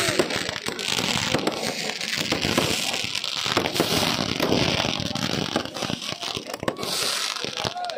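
Firecrackers going off in a rapid, continuous crackling barrage, with stretches of hissing.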